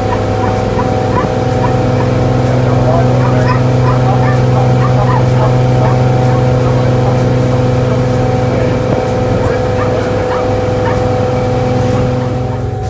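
A Cruisers Yachts motor cruiser's engine running steadily under way: a constant low drone with a steady hum above it, over a rushing haze of wind and water.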